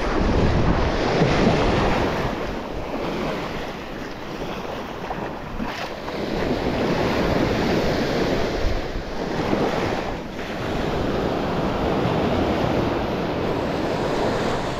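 Surf washing onto the beach with wind buffeting the microphone, a steady rushing noise that swells and eases as the waves come in.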